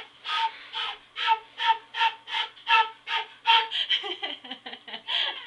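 A beginner blowing a concert flute in short, breathy toots on one note, about two or three a second, with a lot of air noise around the tone. Near the end the toots give way to laughter.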